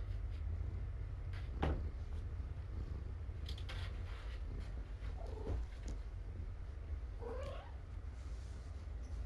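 A cat gives two short meows about two seconds apart, each sliding in pitch, over a low steady hum. A single knock sounds about a second and a half in.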